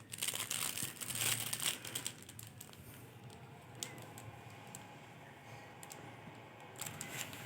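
Soft clicks and rustling from hands at work, likely pressing buttons while powering on a mini projector. After about two seconds it thins to faint room noise with a few scattered clicks.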